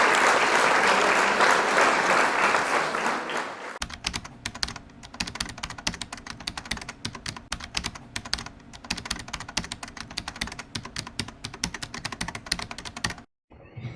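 Applause for about the first four seconds, then rapid clicking like typing on a computer keyboard that goes on until shortly before the end and cuts off suddenly.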